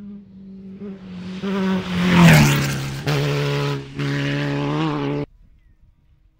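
Off-road race buggy's engine at full throttle approaching fast, passing close with a sharp drop in pitch about two seconds in, then running on away with two brief dropouts before cutting off suddenly about five seconds in.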